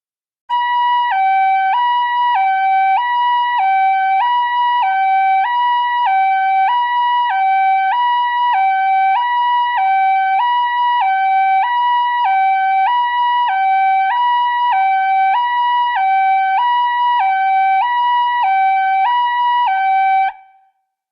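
Electronic two-tone emergency alert alarm, switching evenly between a low and a higher pitch about once a second in a hi-lo pattern. It starts abruptly about half a second in and cuts off near the end.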